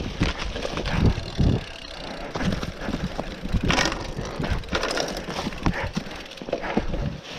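Cyclocross bike riding over a leaf-covered forest dirt track: tyres crunching and rustling through dry fallen leaves, with the bike rattling and knocking over bumps. There are a few heavier thumps at about a second in and a louder crackling jolt near the middle.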